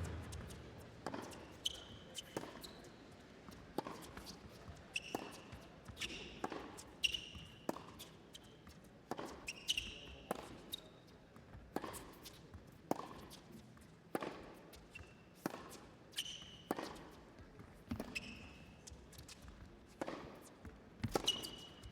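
Tennis rally: racket strikes on the ball and ball bounces about once a second, with short sneaker squeaks on the court between shots.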